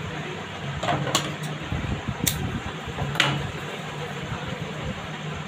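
White cloth being handled and spread out by hand on a sewing table, with several sharp clicks over a steady low hum.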